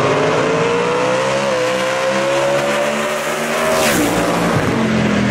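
Drag racing cars at full throttle down the strip. The engine pitch climbs steadily for nearly four seconds. At about four seconds a car rushes past close by and its pitch drops sharply.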